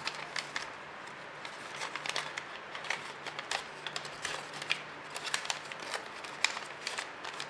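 A square sheet of origami paper crinkling and rustling as hands fold, tuck and smooth its flaps, in a string of short, irregular crackles.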